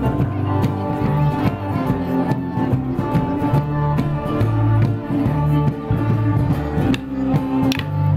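Live folk band playing a Border Morris dance tune, drums under sustained melody notes. A few sharp clacks sound near the end, likely the dancers' sticks striking together.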